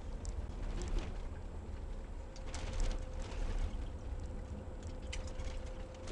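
Steady low rumble of a vehicle moving along, heard from inside, with a few light clicks and a faint steady hum that comes in about halfway through.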